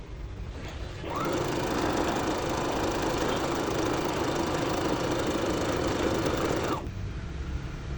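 Portable electric sewing machine running a line of stitches for about six seconds. Its motor speeds up as it starts about a second in and winds down as it stops near the end.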